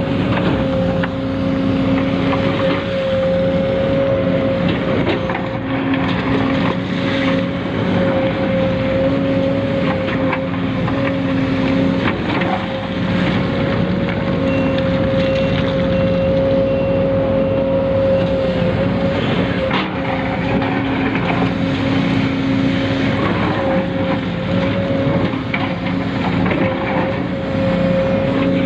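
Small electric motor and gearing of a radio-controlled model vehicle, running with a steady high whine and lower hums that come and go, over a busy rattle with scattered clicks.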